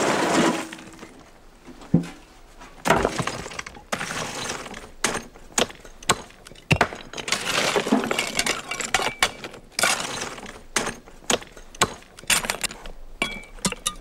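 Small stones and rubble tipped from a metal bucket rattle down into the core of a stone wall, a rush that ends about half a second in. After that, loose stones clatter and knock against one another in short bursts as more are dropped and set by hand.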